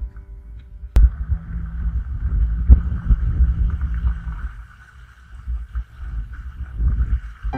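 Outboard motor of a wooden river longboat running under way, a steady low drone mixed with the rumble and buffeting of wind on the microphone and rushing water. A sharp click about a second in. The level sags for a second or so in the middle.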